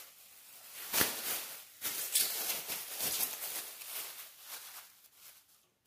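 Thin plastic bag being opened out and handled, crinkling and rustling in irregular crackles.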